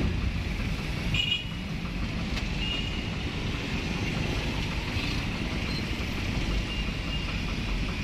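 Steady low rumble of a vehicle's engine and road noise heard from inside its cab, with street traffic around it. A few faint, short high-pitched tones sound now and then, first about a second in.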